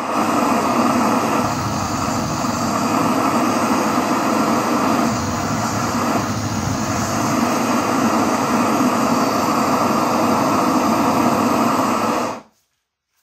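Cartridge gas blowtorch burning steadily with an even hissing rush of flame into a metal exhaust tip. It is shut off abruptly about twelve seconds in.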